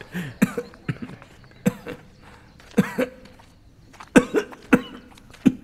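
A man coughing again and again, in single coughs and short pairs, the sound of someone falling ill.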